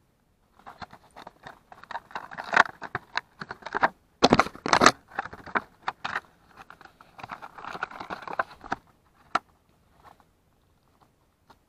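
Clear plastic packaging box being handled and opened: irregular crackles, scrapes and clicks of the plastic shell and its cardboard insert, with the loudest cluster about four seconds in.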